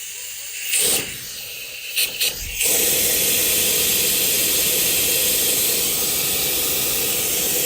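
Hiss of a pressurized spray: a few short blasts, then one loud continuous blast from about two and a half seconds in.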